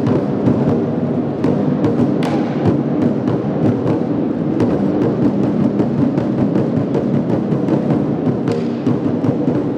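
Several large Chinese barrel drums struck with wooden sticks by an ensemble, a dense, continuous run of strikes with no pause.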